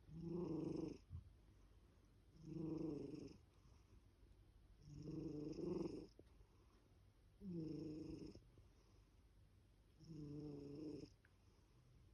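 A sleeping pet snoring: five pitched snores, each about a second long, coming evenly about every two and a half seconds.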